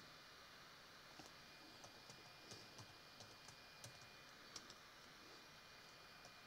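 Faint computer keyboard keystrokes: about ten irregular taps as a word is typed, falling between about one and five seconds in.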